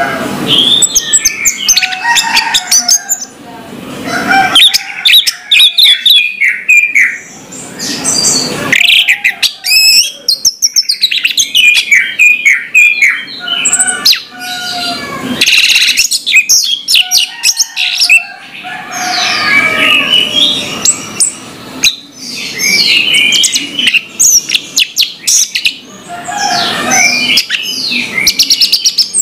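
Orange-headed thrush singing its full, open song: fast, varied runs of whistled and chirping notes in phrases broken by short pauses every few seconds.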